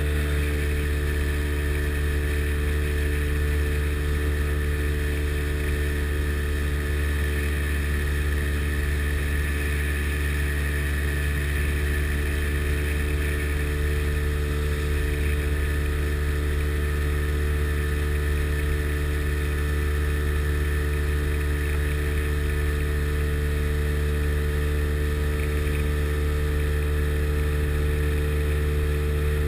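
Sea Ray Sea Rayder jet boat's two-stroke engine running at a constant speed, a steady drone with no change in pitch. It is being test-run after new plugs and cleaned carburettors.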